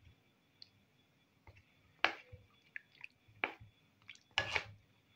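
Spatula working in sugar syrup in a frying pan, spooning the syrup over the fried balushahi: a handful of short, soft wet scrapes, splashes and drips, the loudest about two seconds in and a longer one near the end.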